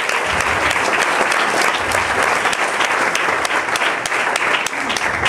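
A congregation applauding: many hands clapping in a dense, steady round.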